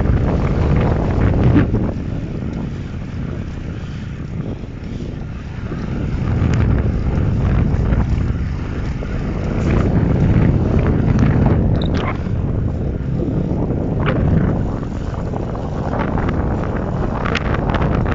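Strong gusty wind buffeting the microphone while riding a bicycle: a loud low rumble that swells and eases every few seconds.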